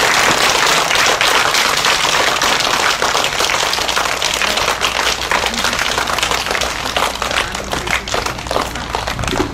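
A group of children and adults clapping steadily in welcome, a dense patter of hand claps that thins toward scattered claps near the end.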